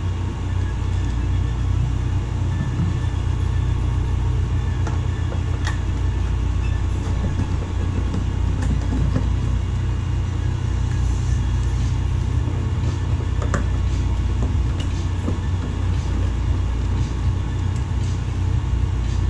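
A steady low hum throughout, with a few faint scattered clicks.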